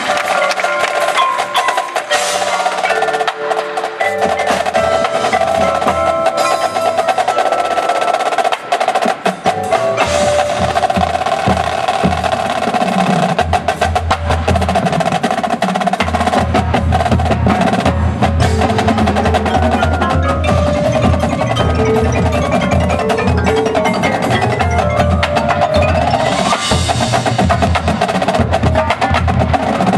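Drum corps percussion section playing: the front ensemble's marimbas and vibraphones with held ringing tones, joined about ten seconds in by the marching snares, tenor drums and bass drums in dense, driving rhythms.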